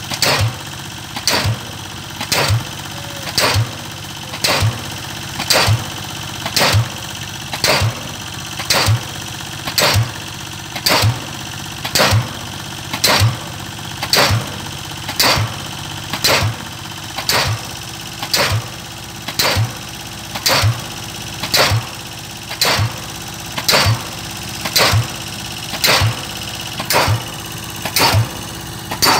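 Pile-driving hammer striking a square pile about once a second, each blow a sharp impact, over the steady running of the crawler piling rig's engine.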